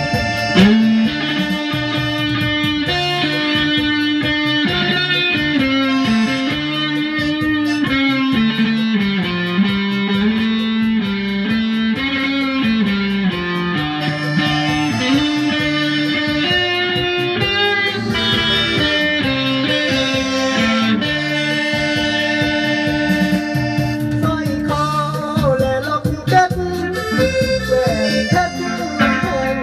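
A small band playing a song live: electric guitar and an electronic keyboard, with a melody line stepping up and down.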